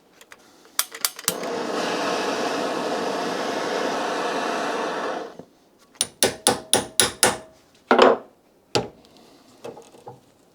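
Hand tools working on a Saab 900's single-piston brake caliper during disassembly. A steady rushing noise lasts about four seconds, then about six sharp metallic knocks come in quick succession with a short ring, and two more single knocks follow.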